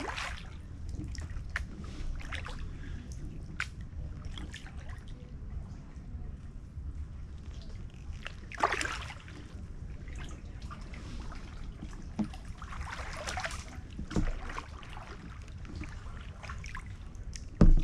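Kayak paddle strokes in calm creek water: drips trickling off the blades and small splashes, the biggest about halfway through and again a few seconds later, over a low steady rumble.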